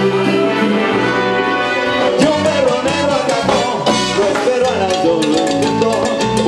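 Salsa band music. It opens on held chords, then percussion comes in about two seconds in, with a melody line over the beat.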